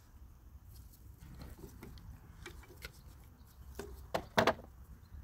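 Screwdriver tip prying and scraping at a stuck main jet inside a Toro Recycler mower's carburetor: faint scratches and small ticks, with a few sharper clicks about four seconds in.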